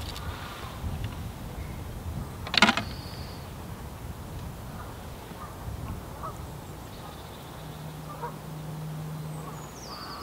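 Faint calls of waterfowl over a steady low outdoor rumble, with one sharp knock about two and a half seconds in.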